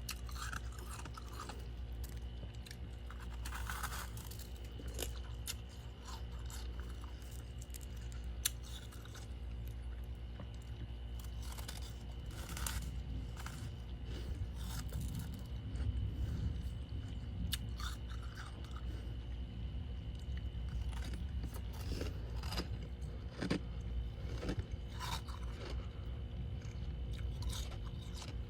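Crunchy freezer frost being bitten and chewed close up, with irregular crunches throughout over a steady low hum.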